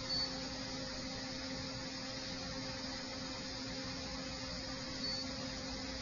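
Steady electrical mains hum over a background hiss. Two brief, faint high beeps come just after the start and again about five seconds in.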